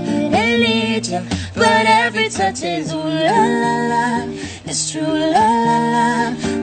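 A woman and a man singing a duet with long held notes, accompanied by a strummed acoustic guitar.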